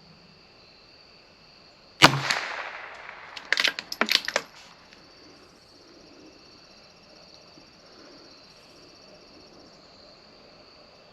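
A single shot from a CZ 457 bolt-action rifle in .22 LR about two seconds in, with a short echoing tail, followed by a quick series of metallic clicks as the bolt is worked to chamber the next round. Crickets chirr steadily underneath.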